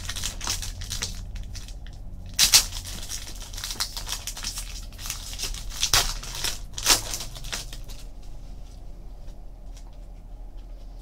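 Panini football card pack wrappers crinkling and tearing open as cards are handled. There are a few sharp rustles, the loudest about two and a half, six and seven seconds in, over a low steady hum.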